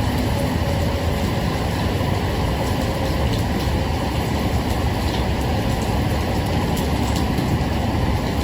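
Steady rain with a constant deep rumble underneath and scattered faint drop ticks.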